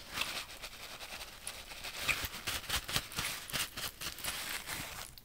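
Thin paper napkin rustling and crinkling as it is handled and crumpled between the hands, a quick irregular run of small crackles.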